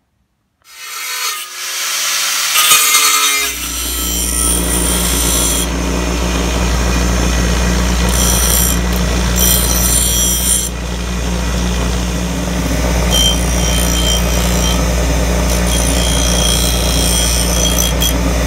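Bench grinder running with a steady electric motor hum while an aluminium plate is held against its spinning wheel, giving a harsh scraping noise as the metal is ground down. The hum comes in a few seconds in.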